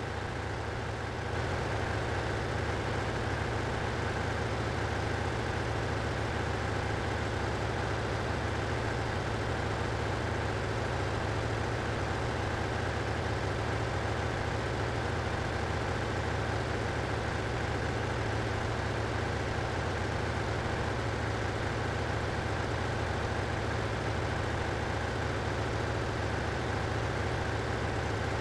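Steady drone of running ship's engine-room machinery, a constant low hum with a noisy wash above it, getting a little louder about a second in.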